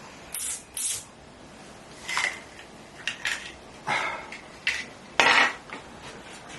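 A series of short clatters and scrapes, some with a brief ring.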